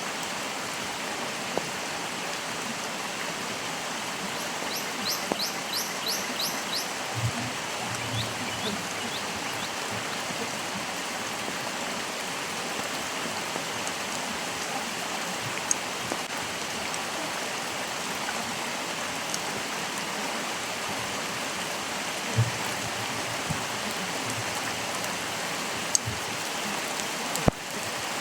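Stream water running steadily. About five seconds in, a bird gives a short trill of quick, high, falling notes, followed by a few softer notes; a few sharp ticks come later.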